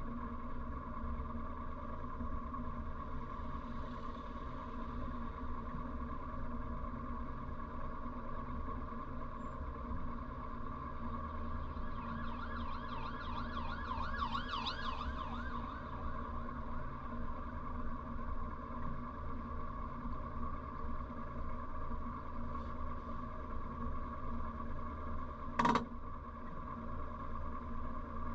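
1957 Morris Minor's 948cc four-cylinder engine idling steadily while the car stands still, heard from inside the cabin. About halfway through, a passing police car's siren warbles briefly, and near the end there is a single sharp click.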